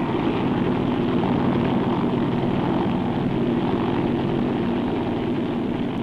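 Small helicopter in flight, its engine and rotor running with a steady hum and a rapid flutter.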